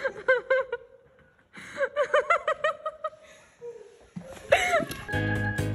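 High-pitched laughter in rapid ha-ha pulses, in two fits with a pause about a second in, then a short cry. Music starts near the end.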